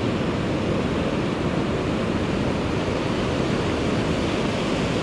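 Ocean surf breaking and washing up a sand beach at the waterline, a steady rush of water, with some wind on the microphone.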